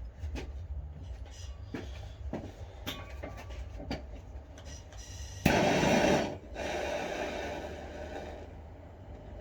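A few clicks and knocks of tools being handled, then a power drill starts suddenly about halfway through. It runs loud for about a second, then runs more quietly into the wall and stops near the end.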